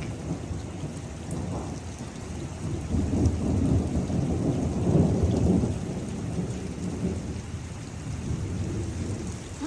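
Heavy rain falling with rolling thunder, the rumble swelling about three seconds in and dying back after about six seconds.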